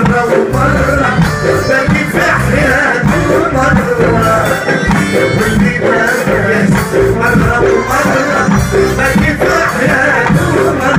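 Live Tunisian music from a large ensemble: many frame drums beating a steady rhythm under lutes and guitar.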